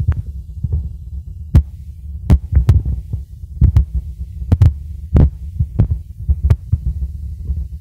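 Low rumble on the recording phone's microphone, with a dozen or so sharp knocks scattered unevenly through it: handling or wind noise on the microphone.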